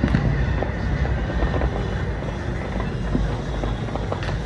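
Distant aerial fireworks: a steady low rumble of shell bursts, with a few sharper pops just after the start and near the end.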